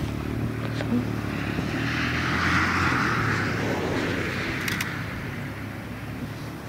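A passing vehicle: a steady engine hum and rush that swells to its loudest two to three seconds in, then fades away.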